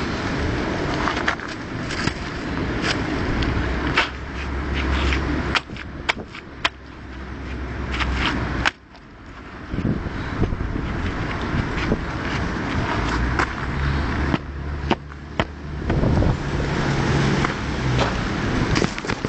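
Scraping and many sharp knocks of hard material being worked, with a low engine hum coming and going.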